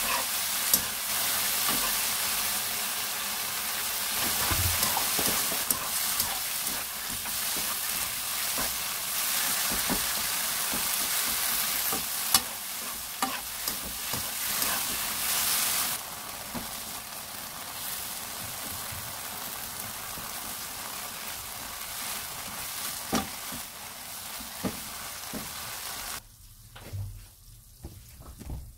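Dried anchovies and shishito peppers sizzling in a frying pan while a silicone spatula stirs and scrapes them, with scattered clicks of the spatula against the pan. The sizzle softens about halfway through and drops away near the end.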